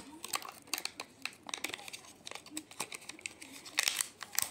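Crinkly film lid being peeled off a Kinder Joy candy tray, crackling in irregular snaps and clicks, loudest at the start and about four seconds in.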